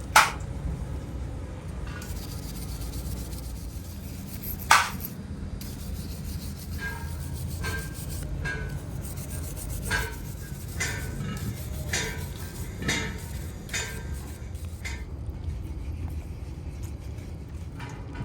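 Hand-work on starter motor parts: rubbing and scraping, with one sharp knock just after the start, another about five seconds in, and then a run of lighter, irregular taps and scrapes.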